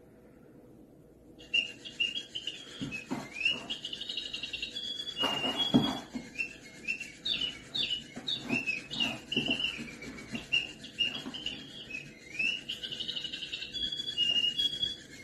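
A small bird chirping rapidly and repeatedly in short, high-pitched calls, many sliding up or down in pitch. The calls start about a second and a half in, with a few soft knocks among them.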